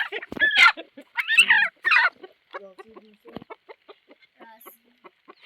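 Chickens clucking: a few loud calls in the first two seconds, then a run of short, soft clucks.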